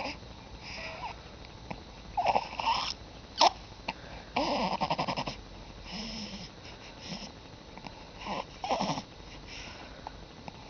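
A baby making funny vocal noises: short squeals and grunts that slide in pitch, and one buzzy, rattling noise about a second long near the middle, in scattered bursts with pauses between.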